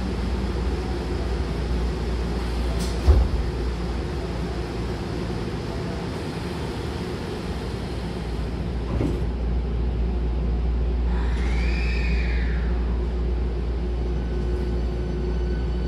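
A standing commuter train hums steadily in an underground station as its sliding passenger doors close. There is a sharp thump about three seconds in and a click about nine seconds in as the doors shut; a brief tone that rises and falls follows a few seconds later.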